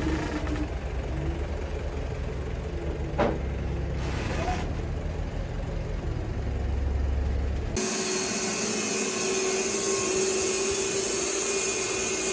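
Woodworking machinery running: a low, steady rumble with a held tone and a single click about three seconds in. About eight seconds in, the sound changes abruptly to a louder, hissing, high-pitched machine noise with a steady tone.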